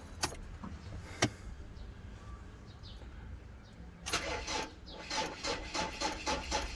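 A Ford Ranger's starter cranking the engine on a deeply drained battery boosted by a portable jump starter, after a couple of sharp clicks. The cranking starts about four seconds in as an even, fast chugging of about four to five beats a second; it is somewhat weak, and the engine turns over without catching.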